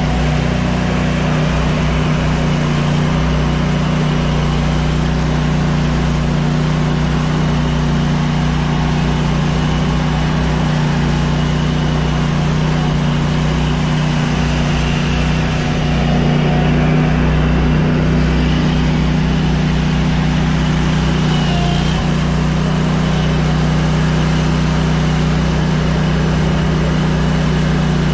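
Commercial lawn mower engine running steadily at a constant speed close by, a little louder from about halfway through.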